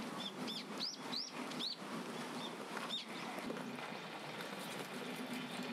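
A small bird chirping: about seven short high notes in the first three seconds, each rising and falling, over steady outdoor background noise.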